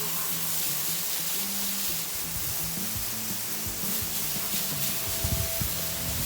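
A steady, loud spraying hiss, as from a spray being aimed at the wheels during cleaning, with background music underneath.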